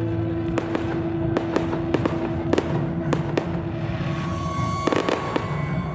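Fireworks display: a dozen or so sharp bangs of aerial shells bursting at uneven intervals, over music playing.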